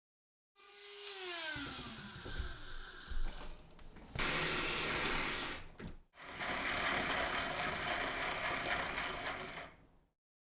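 A handheld power tool running, likely cutting a notch in wood, in two spells with a short break about six seconds in. A falling whine comes at the start.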